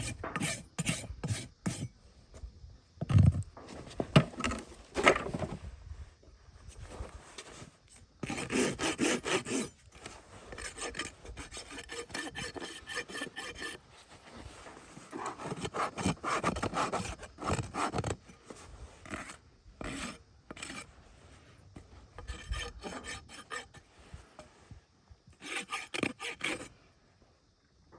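Farrier's rasp filing down a horse's hind hoof: runs of quick scraping strokes, several a second, broken by short pauses.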